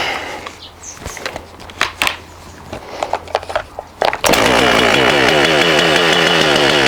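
Two-stroke chainsaw, fitted without its chain, being started: a few knocks and rattles, then about four seconds in the engine catches and runs steadily and loudly.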